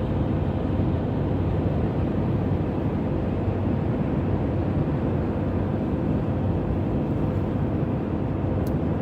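Steady road and engine noise inside the cab of a Ford F-350 diesel pickup cruising at highway speed, mostly a low rumble of tyres and drivetrain with a faint steady hum.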